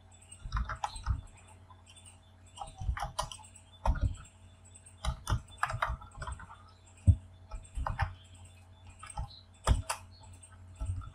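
Typing on a computer keyboard: irregular keystrokes in short bursts with brief pauses between.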